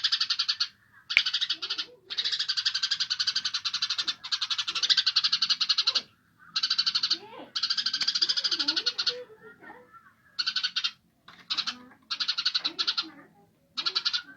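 Recorded songbird song used as masteran training material: bursts of one to two seconds of very fast, rattling trills, repeated with short pauses, getting shorter and choppier in the second half, with fainter lower chirps and slurred calls between them.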